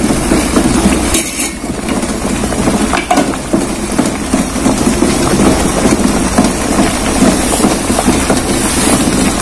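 Water boiling hard in the base of a stacked steamer pot under a perforated steamer tray, a steady, dense bubbling and hissing of steam.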